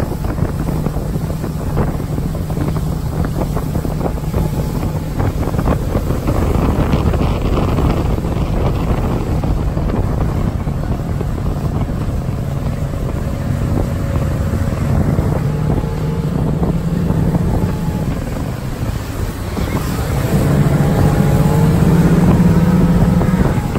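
Motorboat engine running at speed under tow load, with the wake rushing behind the boat and wind buffeting the microphone. The engine gets louder about 20 seconds in.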